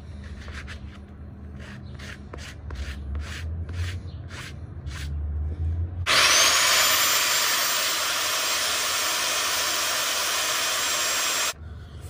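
Light clicks and handling of a wooden post, then a corded power saw starts with a short rising whine about six seconds in and runs steadily for about five seconds while cutting a 4x4 post. It stops abruptly near the end.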